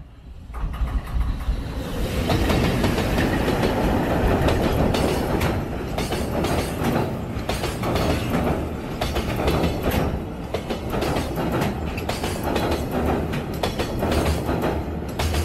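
Freight train of container wagons crossing a railway bridge close by: a steady heavy rumble with wheels clattering over the rails. It swells quickly over the first two seconds as the train arrives.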